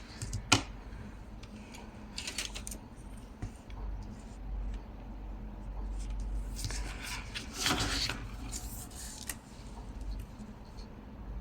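Scissors cutting through cardstock in several short snips: one about two seconds in, then two more around seven and eight seconds, with a click of handling near the start.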